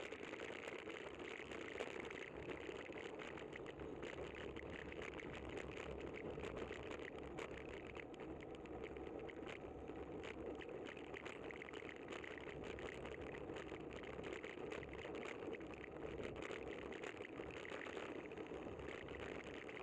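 Steady road and wind noise from riding a bicycle on a city street, with a constant patter of small rattles and clicks from the bike-mounted camera shaking over the pavement.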